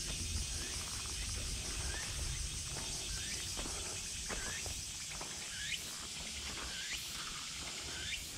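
Steady high insect drone with short rising chirps repeating roughly once a second, over footsteps on a dry leaf-litter trail.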